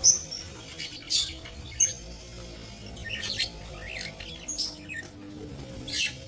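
A flock of budgerigars chirping and squawking in short, sharp calls every second or so, the loudest right at the start.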